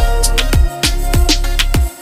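Background music with a steady beat: a deep kick drum about twice a second, with crisp percussion and sustained tones.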